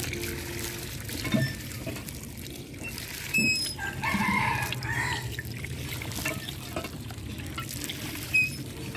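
A rooster crows once about four seconds in, over water trickling from a small homemade toy hand pump into a plastic bucket as its lever is worked.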